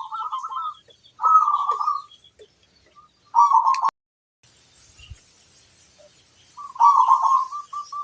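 Zebra dove (perkutut) cooing in rapid trilled phrases, three in the first four seconds before the sound cuts out abruptly for a moment. Near the end another phrase runs into a string of short, evenly spaced coos, with small birds chirping faintly behind.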